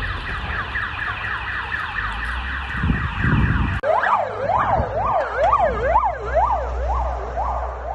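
Emergency vehicle sirens from a passing police car and ambulance. First a fast, rapidly repeating siren, then after an abrupt change a slower up-and-down siren of about two rises and falls a second, over the low rumble of the vehicles.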